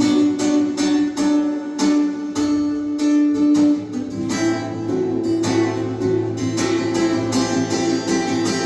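Instrumental passage of a song: acoustic guitar strumming chords in a steady rhythm, moving to a new chord about four seconds in.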